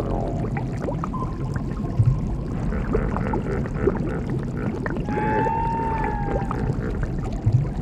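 Underwater ambience sound effect: a steady low bubbling rumble, with a drawn-out tone about a second in and a longer, slightly gliding tone around five seconds in.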